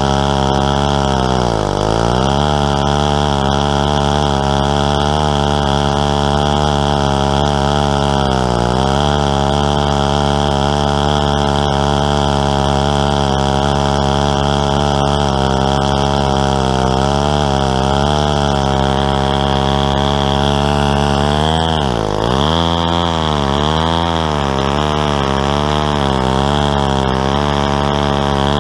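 Stihl 090 two-stroke chainsaw on a homemade chainsaw mill, running at high revs while ripping a tulip poplar log. The engine bogs down about two seconds in, again about nine seconds in, and hardest about twenty-two seconds in, picking back up each time, and wavers in pitch after the last dip.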